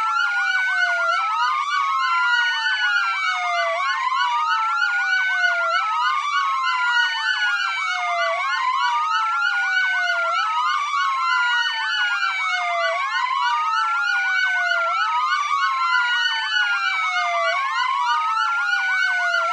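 Several police sirens wailing at once, their overlapping rising-and-falling tones layered together: one slow wail cycling about every two seconds, with faster-cycling sirens mixed in.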